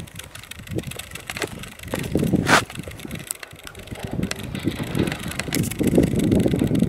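Footsteps crunching and scuffing on a dry, gravelly dirt trail, with an irregular rustle and one sharper crack about two and a half seconds in.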